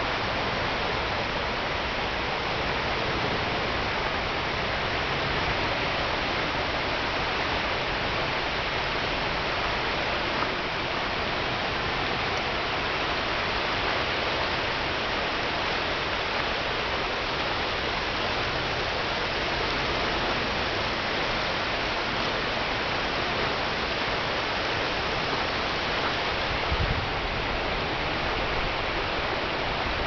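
Shallow river rapids rushing over rocks: a steady, continuous hiss of moving water. A brief low bump near the end.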